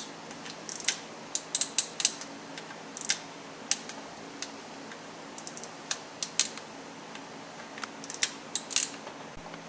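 Small hand torque wrench ratcheting and clicking on the T27 valve body bolts of a ZF5HP24 automatic transmission, in short irregular runs of sharp metallic clicks, as the bolts are torqued down to 72 inch-pounds.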